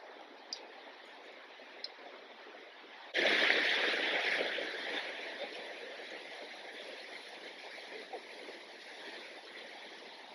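Rushing river water: a steady rushing noise comes in suddenly about three seconds in, loudest at first and then settling to an even rush. Before it, only faint background with a couple of small clicks.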